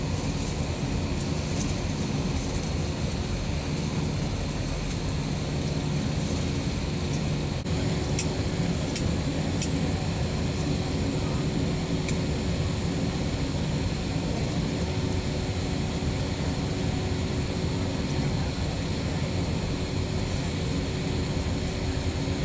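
Jet airliner cabin noise while taxiing: the engines run at low thrust as a steady low rumble, with a faint steady hum joining about eight seconds in.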